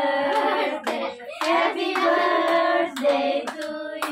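A group of adults and children singing a birthday song together, clapping their hands along with it.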